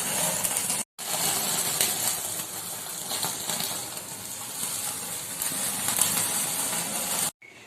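Skewered chicken kabab roasting in an open flame: a steady sizzling hiss of the fire and cooking meat, cut by two short silent gaps, one about a second in and one near the end.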